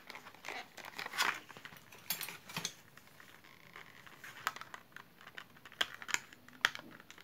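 Clear plastic kit boxes handled and opened in gloved hands: light crinkling and scattered clicks of the plastic, with a few sharper clicks in the second half as tweezers work at the box.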